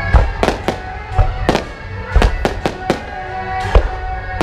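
Aerial firework shells bursting overhead, about ten sharp bangs at uneven intervals in quick succession.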